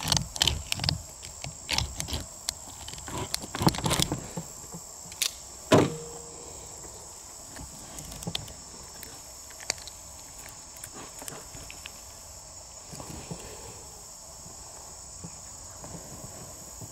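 Hands digging a bullet out of a clear ballistic gel block: irregular clicks, knocks and handling noises, busiest in the first six seconds with the loudest knock near six seconds, then sparser and fainter. Insects keep up a steady high-pitched drone behind.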